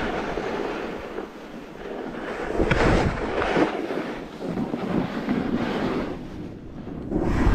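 Snowboard edge scraping and hissing across the snow through a series of turns, in surges that swell and fade every second or so, with wind buffeting the microphone.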